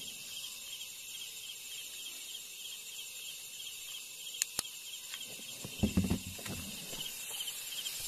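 Crickets chirping in a steady, fast pulsing trill. Two sharp clicks come about four and a half seconds in, and a few faint low thumps follow near six seconds.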